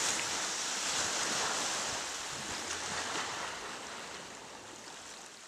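Steady rush of sea water that fades out gradually.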